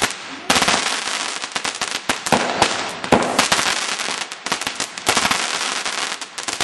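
Fireworks bursting overhead into golden crackling sparks: a dense, continuous run of crackles and bangs, with sharper loud bangs about half a second in and again around two, three and five seconds in.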